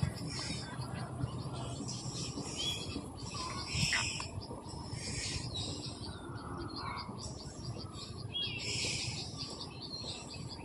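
Outdoor ambience of small birds chirping and insects trilling over a steady background noise, with a short knock about four seconds in.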